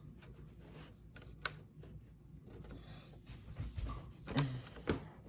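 Cardboard and plastic packaging of a Matchbox advent calendar being opened and handled: scattered light clicks and rustles, getting louder near the end.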